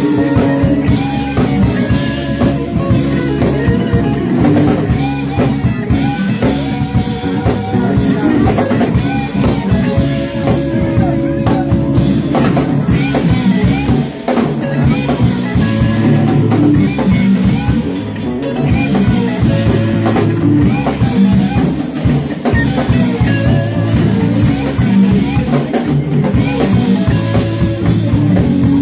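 Live rock band playing: drum kit, electric guitar and bass, with some singing.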